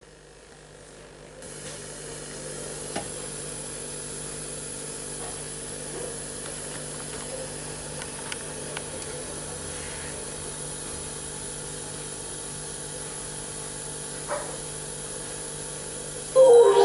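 Steady hiss with a low hum from a television's speaker during VHS tape playback, with a few faint clicks. It grows a little louder after about a second and a half, and music starts suddenly right at the end.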